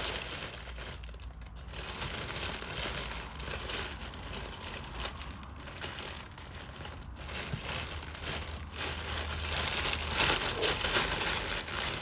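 A shipping package being opened and its wrapping handled: continuous crinkling and rustling with some tearing, getting louder about ten seconds in.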